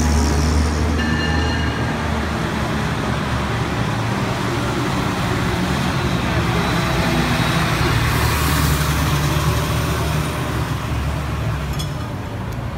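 Fire engines' engines rumbling past at low speed. A vintage fire engine pulls away at the start, then a modern fire engine drives by and away from about five seconds in, over general street traffic noise.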